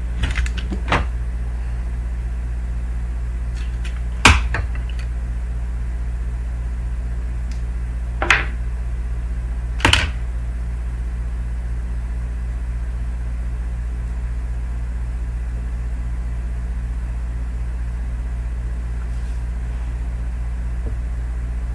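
A few light knocks and taps as small objects, among them a roll of electrical tape, are set down on a tabletop, over a steady low hum.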